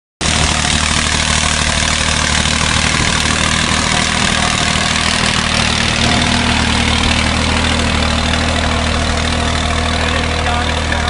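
Tractor diesel engine running steadily under load, pulling a tined cultivator through the soil.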